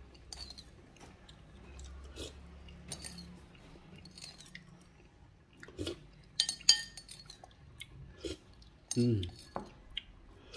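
Someone eating cooked snails: scattered light clicks and clinks of cutlery on dishware, with a cluster of sharper clinks about six and a half seconds in. A short falling vocal sound comes about nine seconds in.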